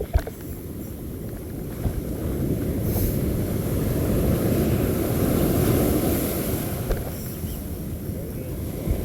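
Wind rumbling on the microphone over surf washing up the beach, swelling in the middle and easing off near the end, with a couple of short knocks at the start.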